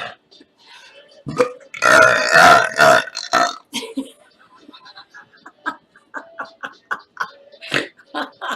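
A woman belching while bouncing on an exercise trampoline: one long, loud burp about a second in, then a quick run of short choppy burps at about three a second, and a sharper burp near the end.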